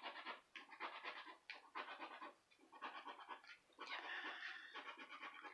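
Scratch-off lottery ticket being scratched, with quick repeated scraping strokes a few times a second and a longer continuous scrape about four seconds in.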